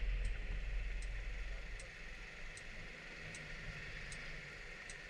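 Kymco Like 125 scooter's turn-signal flasher ticking evenly, a little more than once a second, over a steady hiss of rain. The scooter's low engine rumble fades about two seconds in.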